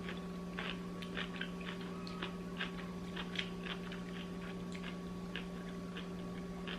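Someone chewing a crunchy pickle wrapped in cotton candy: a run of small irregular crunching clicks over a steady low hum.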